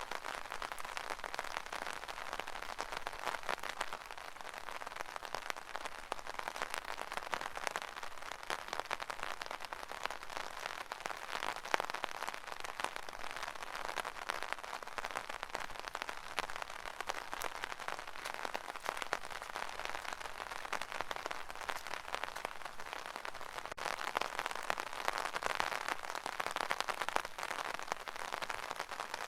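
Rain falling on an umbrella: a dense, steady patter of drops striking the canopy.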